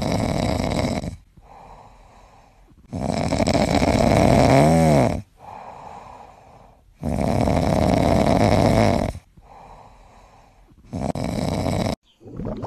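Loud, steady-rhythm snoring: four long snores of about two seconds each, one roughly every four seconds, with softer breaths between. One snore near the middle carries a wavering whistle.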